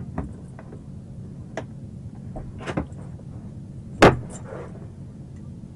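Several sharp knocks and clicks over a steady low hum, with one much louder bang about four seconds in.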